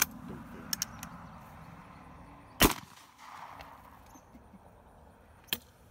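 A single 12-gauge shotgun shot from a homemade bottle-cap shell, a sharp crack about two and a half seconds in with a short echo. Before it come a few small metallic clicks of the gun being handled, and another sharp click or crack comes near the end.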